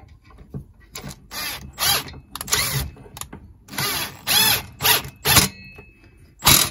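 A bolt being driven into the engine's anti-vibration mount with a long-shafted driver: about a dozen short bursts of ratcheting, turning sound, each a fraction of a second, at uneven intervals.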